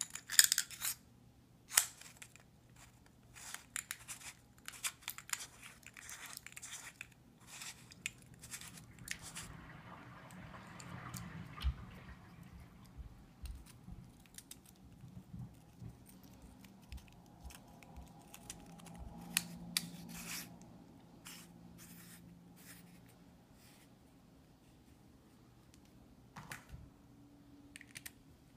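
Irregular small clicks, taps and scrapes of a cylindrical power bank being put back together by hand: the battery cell slid back into its metal tube, the socket end fitted and turned, and a cable plugged into the USB socket.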